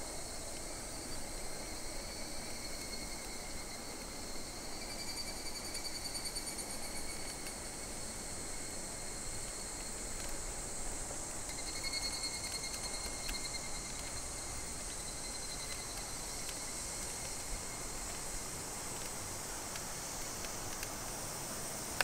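A steady chorus of summer insects in the trees: a high, shrill buzzing that swells twice, once about five seconds in and again around twelve seconds. A low, even rushing noise runs beneath it.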